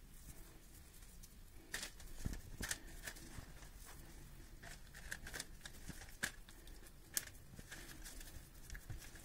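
Faint rustling and crinkling of a sheet of baking parchment, in scattered short crackles, as hands press and smooth a layer of minced meat on top of it.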